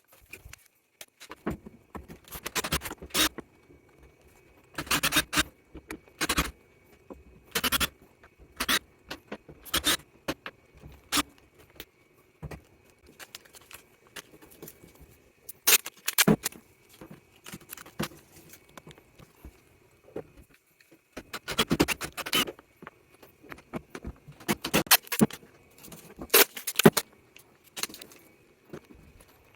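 Clicks, rattles and clatter of screws, tools and plastic panel parts being handled in short bursts as the top panel of a Panasonic NA-VX7200L washing machine is taken off. A faint steady high tone runs underneath.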